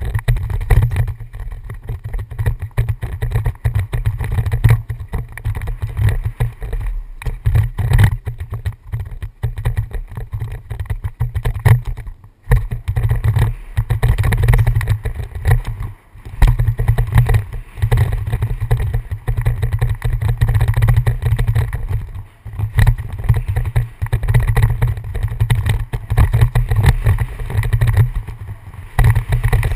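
Wind buffeting the microphone of a helmet-mounted camera on a downhill mountain bike running fast down a dirt trail, a constant deep rumble, with rattling and knocks from the bike over rough ground. The rumble drops out briefly a few times.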